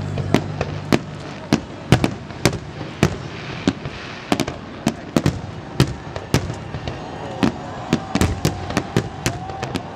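Aerial firework shells bursting in a rapid, irregular run of sharp bangs, coming thicker in the second half.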